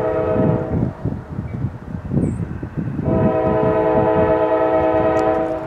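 Multi-chime air horn of the lead GE ES40DC diesel locomotive sounding two long blasts: the first cuts off about a second in, the second starts about three seconds in and stops just before the end. A low rumble from the approaching train runs underneath.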